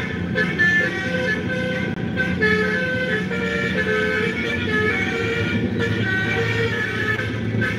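Basuri telolet horn playing a melody of quick stepping tones, with a steady low vehicle engine hum underneath.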